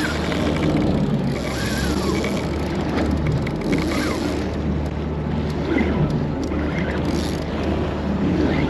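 Boat engine running steadily in reverse, backing down on a hooked fish that has taken most of the line, with wind and water noise over it.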